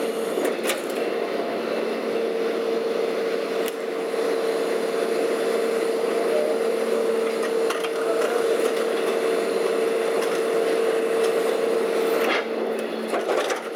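Leach 2R-II rear-loader garbage truck running its packer cycle: a steady high-pitched hum from the truck, with a few sharp cracks as the blade crushes the demolition debris of broken wood. The hum stops about twelve seconds in, as the cycle ends.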